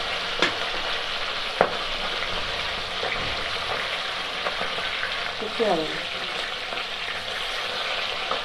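Rohu fish steaks sizzling steadily as they shallow-fry in hot oil in an iron kadai. A steel spatula clicks sharply against the pan about half a second in and again about a second and a half in.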